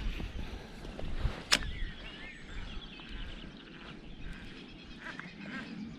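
Wind rumbling on the microphone, with birds calling and a single sharp click about a second and a half in.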